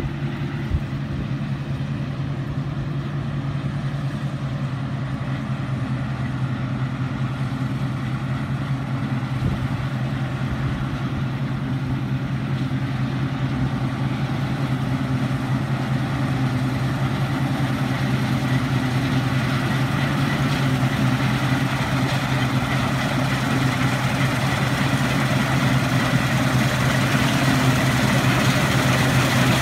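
Combine harvester running steadily while cutting standing wheat, its engine drone and the machine's mechanical noise growing gradually louder and brighter as it draws nearer.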